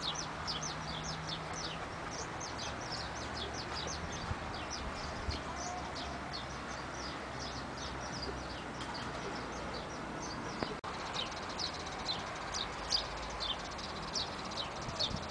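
Small birds chirping: many short, high, quick chirps, several a second, over a faint steady background hum.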